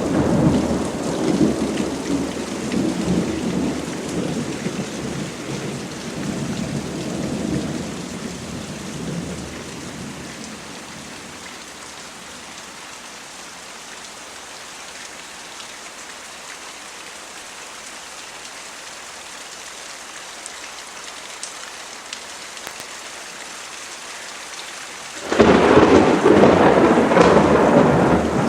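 Thunderstorm: steady rain with thunder. A low rumble of thunder dies away over the first ten seconds or so, leaving rain alone, then a sudden loud peal of thunder breaks in near the end.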